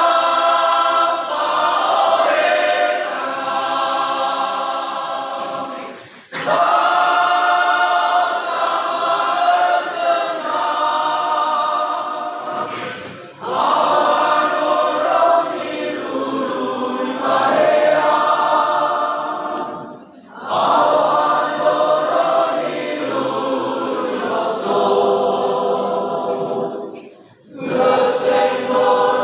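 Choir singing a hymn in sustained phrases about seven seconds long, with a brief breath between phrases.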